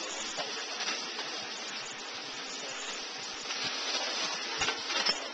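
Steady sizzling hiss from a hot griddle cooking Ramly burgers, with a few sharper crackles near the end.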